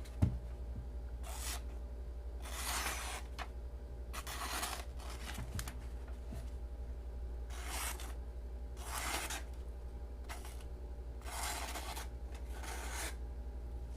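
Small folding knife's thin, flat-ground D2 steel blade slicing phone-book pages, about seven separate swishing cuts. One sharp knock right at the start, and a steady low hum underneath.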